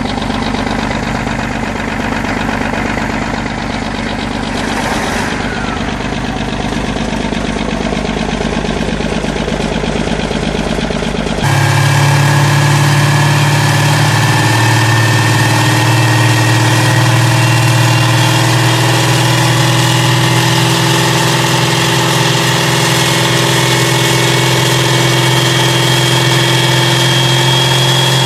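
Big diesel engine idling steadily. About eleven seconds in it cuts to a louder Mack E9 V8 diesel idling, with a steady deep note and whining tones that slowly creep up in pitch.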